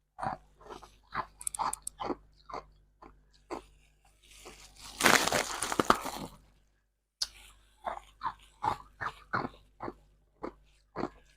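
Rose-shaped ice being bitten and chewed close to the microphone: a run of sharp, separate crunches, with a denser stretch of continuous crunching around the middle.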